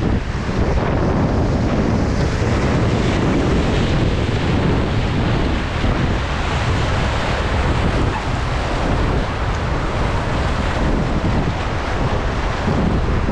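Whitewater of a river rapid rushing loudly and steadily, with wind buffeting the microphone.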